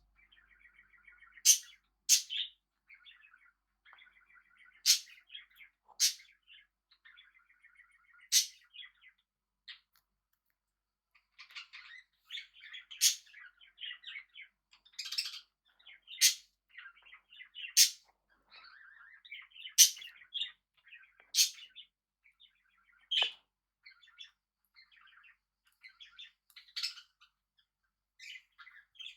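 Pet budgerigars and cockatiels calling: sharp, loud chirps every second or two over a quieter, rasping, chattering warble, with a short lull about ten seconds in.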